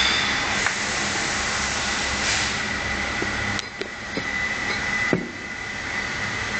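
Steady machine noise with a thin, high, steady whine, and a sharp knock about five seconds in.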